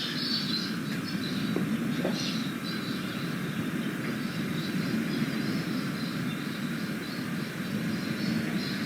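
Outdoor ambience: birds chirping over a steady low rumble.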